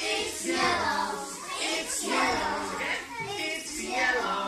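A group of young children's voices, several talking at once.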